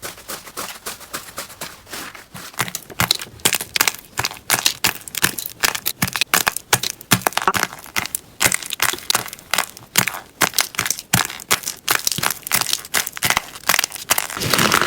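Slime being pressed and squeezed, giving a rapid run of crackling clicks and pops that gets denser after about two seconds.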